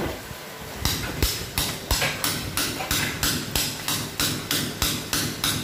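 Hand hammer striking a masonry wall in a steady rhythm, about three blows a second, starting about a second in.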